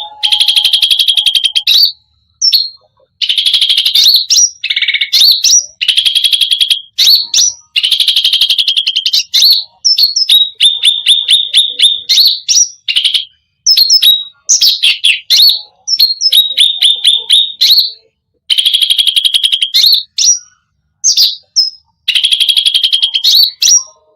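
Cucak rante singing a fast, loud song of rapid chattering trills, in phrases of one to two seconds with short gaps between, mixed with quick rising and falling whistled notes.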